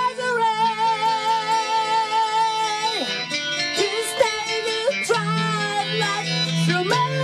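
A man singing long, high held notes with a wide vibrato, accompanied by a round-backed acoustic guitar.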